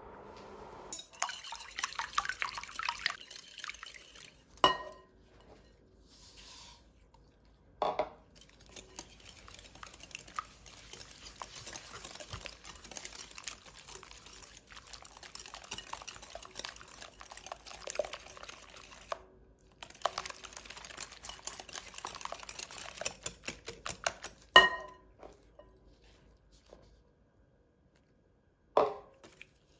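Wire whisk beating egg whites in a glass mixing bowl: fast, continuous clicking and rattling of the wires against the glass, broken briefly in the middle, with a few sharper knocks against the bowl.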